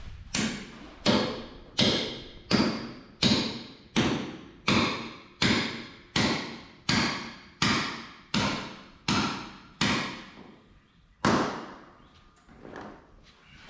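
Hammer blows ringing on metal, struck at an even pace of about one every three quarters of a second, fourteen in a row, then a short pause and one last blow.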